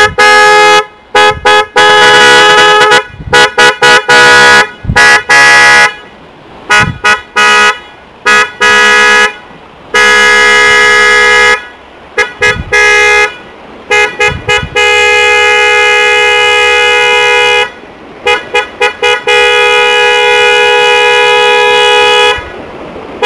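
A pair of newly installed 12 V windtone horns on a Hero Splendor Plus motorcycle, wired through a horn relay, sounding on test. They give loud, steady-pitched blasts: quick runs of short toots mixed with several long blasts of two to three seconds each.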